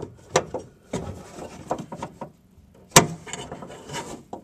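Scattered clicks and knocks of hands handling parts inside a car door's sheet-metal cavity, with one sharp knock about three seconds in.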